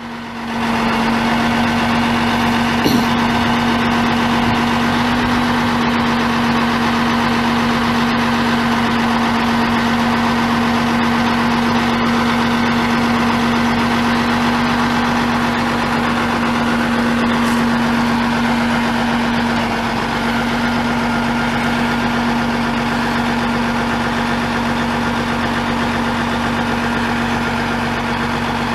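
Diesel engine idling steadily, with a strong constant hum; the level drops slightly about twenty seconds in.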